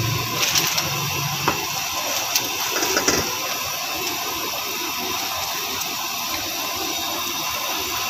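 Burger buns sizzling gently in a little ghee on a hot iron tawa, a steady hiss. A few light knocks come in the first three seconds as more buns are set down on the pan.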